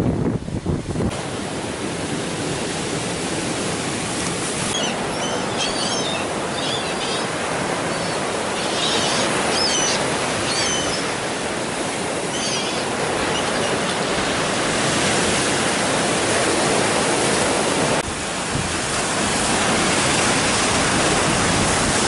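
Rough sea surf: storm waves breaking against concrete breakwater blocks and washing up the beach, a steady rushing noise. Gulls call repeatedly over the surf for several seconds in the middle.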